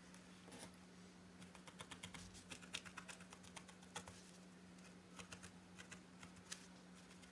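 Felting needle stabbing into wool on a pipe-cleaner figure over a foam pad: faint, quick clicks in irregular runs, with a single sharper one about four seconds in.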